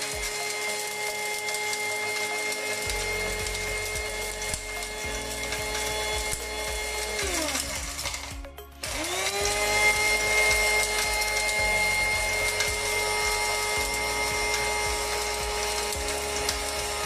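Small electric mini chopper's motor whirring steadily as it grinds ehu seeds and uda. A little past halfway it winds down to a stop, then spins straight back up to full speed.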